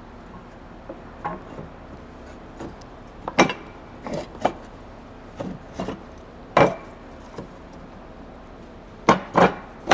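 Parts being handled and fitted into a John Deere 1910 air cart meter housing as the divider bearing is inserted: irregular knocks and clinks, the sharpest about three and a half, six and a half and nine seconds in.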